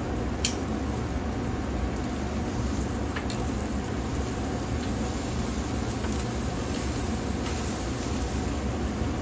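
Marinated beef short ribs sizzling on the grate of a ceramic kamado grill over a steady low hum, with a sharp click of metal tongs about half a second in and a fainter one about three seconds in.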